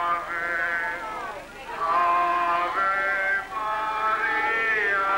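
Singing with long held notes and short slides between pitches, broken by brief pauses between phrases about a second and a half in and again near three and a half seconds.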